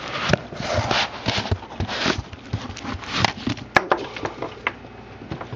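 Cardboard box and foam packing rustling and scraping as a small Stirling engine is lifted out by hand, with scattered clicks and knocks of handling, the sharpest a little after three seconds in.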